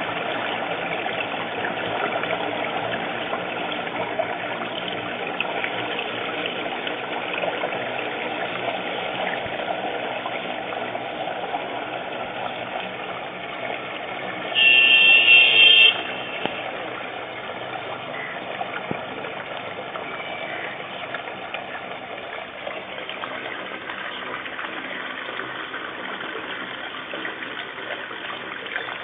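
Rainwater running steadily out of a drainpipe. About halfway through, a loud high-pitched tone sounds for about a second and a half.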